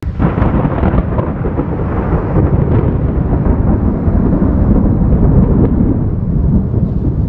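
A loud, steady rumble, heaviest in the low range, that starts suddenly.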